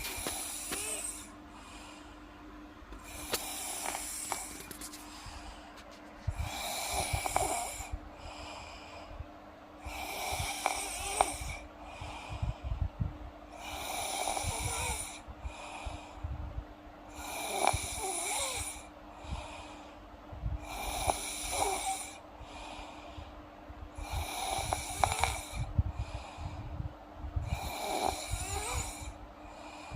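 A sleeping girl snoring in an even rhythm, one snore about every three and a half seconds.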